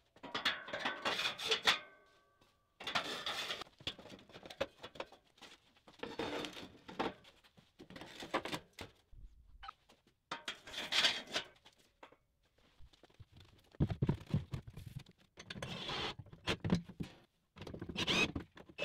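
Intermittent handling noises on a steel frame: short bursts of knocks, rustles and scrapes with silent breaks between them. Near the end the door of a sheet-steel electrical cabinet is opened.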